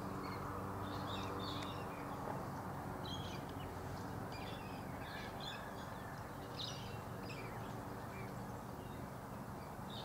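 Faint, scattered short calls of distant wild birds over a steady low hum.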